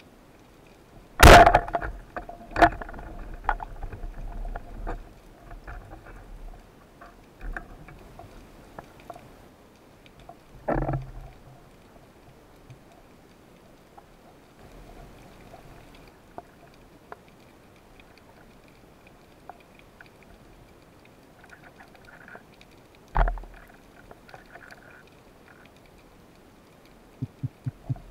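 Band-powered speargun fired underwater: a loud sharp crack about a second in, then a second click and a few seconds of rattling clicks and knocks from the gun and shaft. Two more single loud knocks come near the middle and shortly before the end, with scattered small clicks over a faint underwater hiss.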